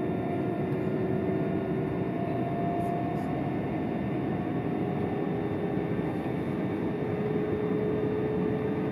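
c2c electric train running at speed, heard from inside the carriage. The steady rumble of wheels on track carries a faint whine that rises slowly in pitch.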